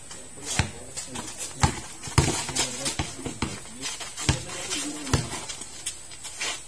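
A basketball bouncing on a hard court: a series of sharp thuds at uneven intervals.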